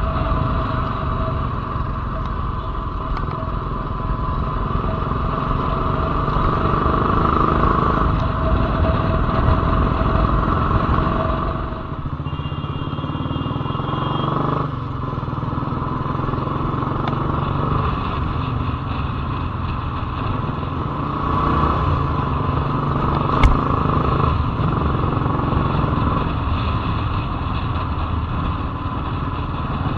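Royal Enfield Lightning 535's single-cylinder engine running as the motorcycle is ridden. The level dips briefly about twelve seconds in, then the engine runs on steadily.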